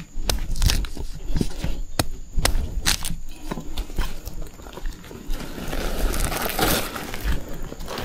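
Dry bamboo leaves and twigs crackling and snapping during a search for bamboo shoots on foot: a handful of sharp cracks in the first three seconds, then a longer crunching rustle about six seconds in.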